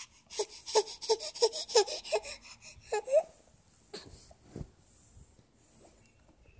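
A baby's voice: a quick run of short, breathy vocal sounds, about three a second, each dropping in pitch, for roughly three seconds. Then faint rustling of bedding and a couple of soft knocks.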